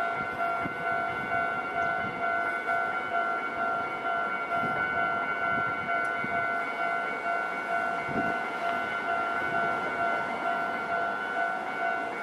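Japanese railway level-crossing warning bell ringing: an electronic chime repeating steadily without pause, the signal that a train is approaching the crossing.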